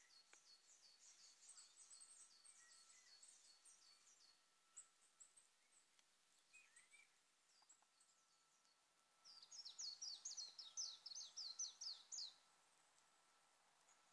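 Faint birdsong: a small songbird singing rapid runs of high, downslurred notes, several a second, in two bursts, the second louder.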